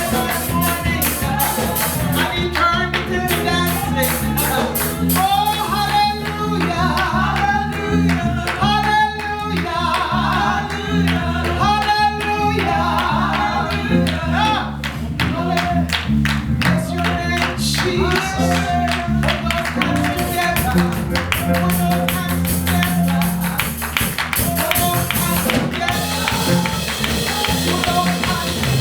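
Live gospel worship music: voices singing a melody over a band with a steady beat and tambourine.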